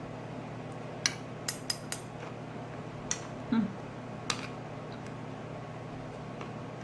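Cutlery clinking against a plate during a meal: about six sharp, separate clicks in the first half, over a steady low hum.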